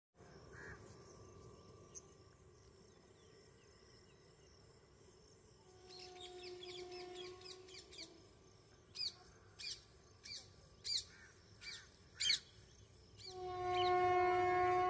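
Birds chirping in short, repeated calls, with a distant train horn sounding twice: a short, steady blast about six seconds in and a longer, louder one near the end.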